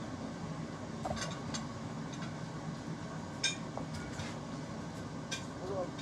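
Scattered light clicks and clinks of cutlery and dishes during a meal, about seven in a few seconds, over a steady low background hum.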